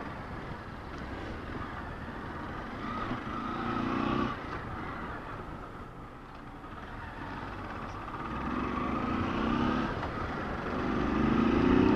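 Motorcycle engine running as the bike is ridden slowly through a street, its sound swelling three times as the throttle is opened and easing off in between, over a steady low road rumble.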